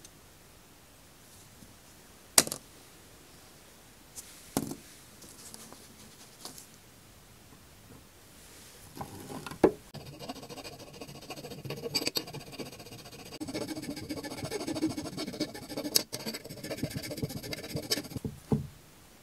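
A few sharp clicks and taps of metal being handled. Then, about halfway in, a steel hand file starts rasping back and forth on a thin metal strip clamped in a bench vise, a run of filing strokes that ends in a knock.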